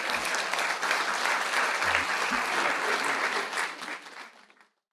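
Audience applauding, a dense clatter of many hands clapping that fades out near the end.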